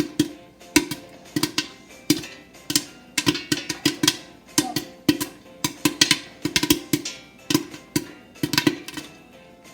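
Popcorn kernels popping in hot oil in a stovetop pan: irregular sharp pops, a few each second, some bunched in quick clusters.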